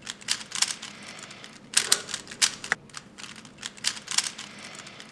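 Plastic Rubik's cube being twisted fast, its layers clicking and clacking in quick, irregular runs.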